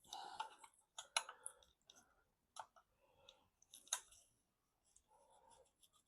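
Faint, scattered clicks and taps of hand tools and small metal parts being handled on an engine, with two sharper clicks about a second in and about four seconds in.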